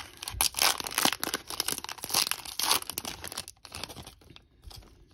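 Silver foil wrapper of a trading-card pack being torn open and crinkled in the hands. The crackling is dense at first and dies down to a few faint crinkles about three and a half seconds in.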